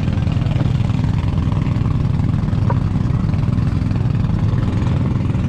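A boat engine running steadily at an even, low pitch.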